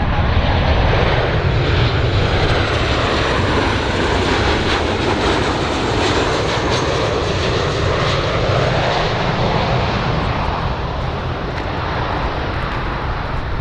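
Jet engine noise from a Boeing 737-800's twin CFM56-7B turbofans at approach power, as the airliner comes in to land with its gear down. It is a steady, dense rush with a deep low rumble and a faint thin high whine above it.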